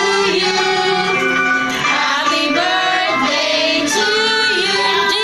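Music with several voices singing, women's and children's voices among them.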